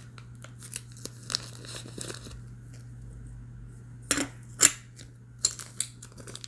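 Crinkling and rustling of the small plastic bags that silver bullion rounds come in, with scattered sharp clicks as the rounds are handled into a plastic coin tube; the two loudest clicks come about four and a half seconds in.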